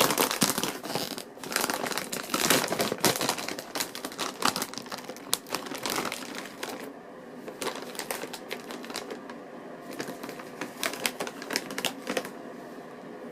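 Potato chip bag crinkling as it is opened and handled: dense crackling for about the first half, then sparser crackles.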